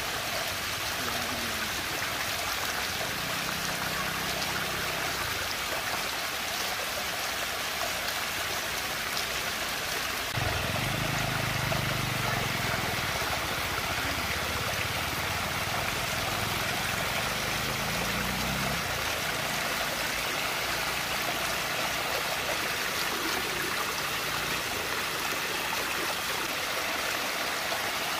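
Steady rushing and churning of water swirling in a whirlpool vortex.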